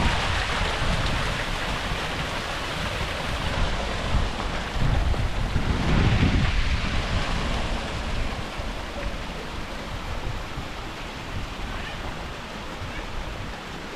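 Steady rush of flowing water, like a mountain stream or waterfall. A stronger low rumble comes about five to seven seconds in, then the sound grows gradually quieter.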